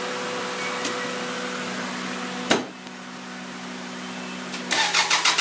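A steady hum with one sharp click about two and a half seconds in; near the end a 2001 Toyota Camry's engine cranks and fires, just after a tune-up with fresh spark plugs.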